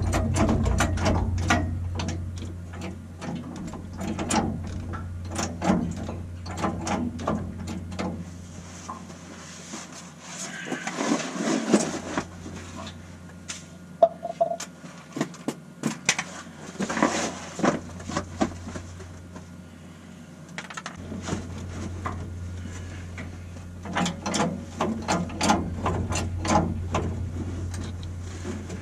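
Rapid ratcheting clicks in several bursts, as a ratchet mechanism is worked under the truck, with a steady low hum behind them that stops for a while in the middle.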